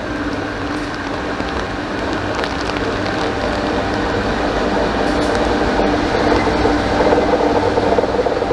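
Qube diesel locomotive approaching and passing through the station at the head of a train, its engine running steadily and growing louder as it nears.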